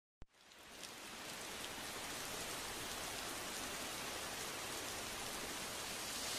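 Steady rain, an even low hiss that fades in over the first two seconds and then holds.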